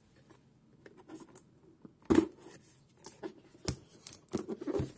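Scissors cutting into a cardboard box, with scrapes and knocks as the box is handled. The loudest is a knock about two seconds in and a sharp click a little later.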